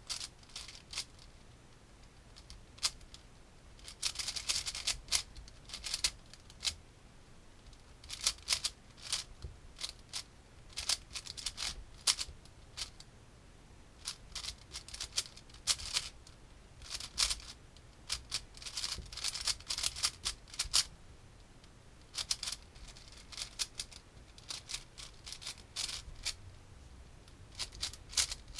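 Plastic puzzle cube being turned fast during a speedsolve: flurries of rapid clicking layer turns, broken by short pauses between sequences.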